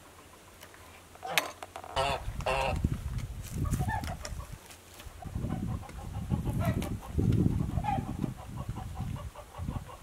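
Icelandic chickens clucking in short calls several times, over a low rustling and knocking that starts about two seconds in, from the electric poultry netting being taken down.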